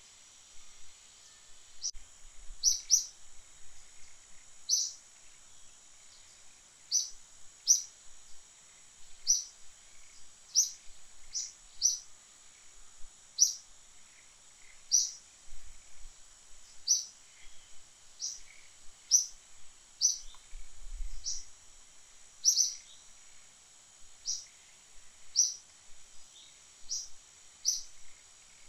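Short high chirps repeating about once every second or so over a steady high-pitched insect drone: woodland bird and insect sounds.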